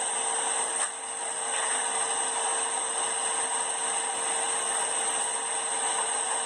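A machine runs steadily, a continuous whirring hiss with a constant high whine and a lower hum.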